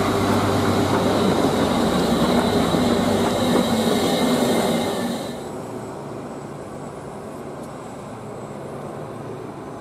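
A city bus's diesel engine running close by, a steady low hum with a high whine over it. About five seconds in it cuts off abruptly to a much quieter outdoor background.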